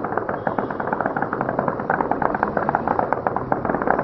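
Long stretch of rapid automatic gunfire, many shots a second in a dense, unbroken run, stopping suddenly at the end.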